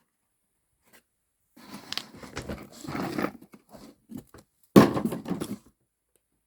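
Rustling and scraping of small parts being handled, then, near the end, a sharp crash of a glass component dropping and breaking.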